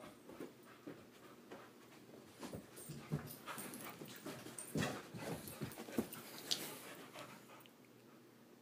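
Golden retriever puppy panting and scuffling about on the bed covers, with a busy stretch of rustles and soft knocks in the middle.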